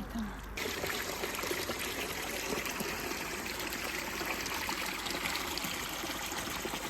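Water of a flowing stream, a steady rushing trickle that cuts in abruptly about half a second in.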